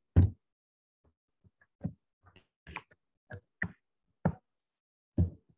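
A series of about nine short, irregular knocks and taps with dead silence between them, the loudest just after the start.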